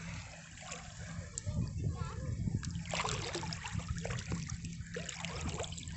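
Shallow sea water splashing and sloshing around a person wading, the splashes coming thicker from about halfway through, with faint voices in the background.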